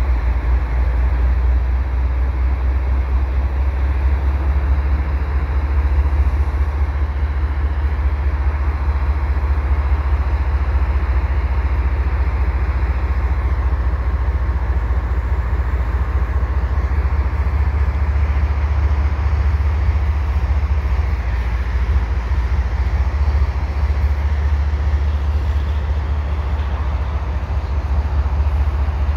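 GE ES44 diesel locomotive's GEVO V12 engine running as it pulls a cut of double-stack container cars forward, with the cars rolling behind it; a steady, deep rumble.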